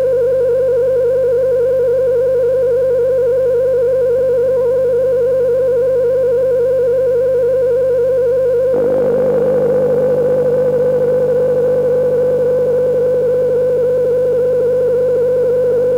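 Modular synthesizer drone run through a Korg Monotron Delay: one steady held tone with a fast wavering. About nine seconds in, a rougher, noisier layer joins beneath it and the drone thickens.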